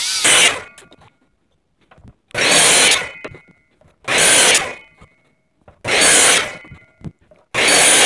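A 12-inch Bosch miter saw making five quick 45-degree crosscuts through a board in a row. Each cut is a loud burst of blade noise a little under a second long, coming about every 1.8 seconds.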